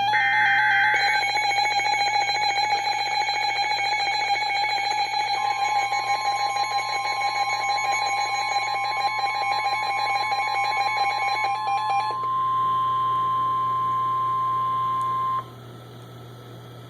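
NOAA Weather Radio Emergency Alert System tones for a tornado warning. The last burst of the SAME header's digital data ends about a second in and is followed by a steady electronic alarm tone. About five seconds in, the weather radio's single 1050 Hz warning alarm tone joins it. The first tone stops about twelve seconds in, and the 1050 Hz tone cuts off about fifteen seconds in, leaving a faint hiss.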